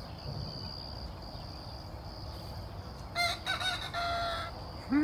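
A rooster crowing once, a short weak crow about three seconds in.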